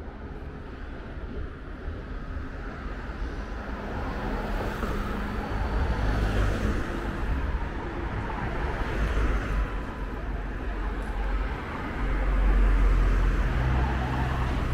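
Road traffic on a town street: cars passing, the noise swelling louder about four seconds in and again near the end.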